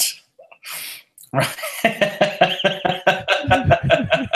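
A man laughing heartily: a quick breath, then from just over a second in a long run of rhythmic ha-ha pulses, about five a second.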